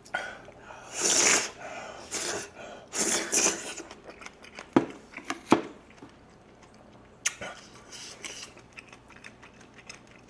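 Close-miked eating: jjajangmyeon noodles slurped and chewed, with a couple of sharp clicks about halfway through and softer chewing after.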